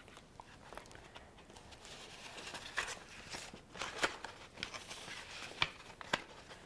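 Markers scratching and rubbing across folded paper as two people colour, a Copic alcohol marker and a water-soluble brush marker, with a few light clicks and taps in the second half.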